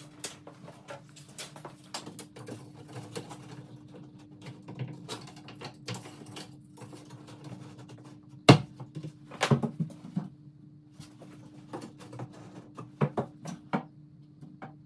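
Scattered taps, clicks and knocks of hand work on a door jamb being shimmed and set in its opening. One sharp bang comes about eight and a half seconds in, followed by quick clusters of knocks, over a steady low hum.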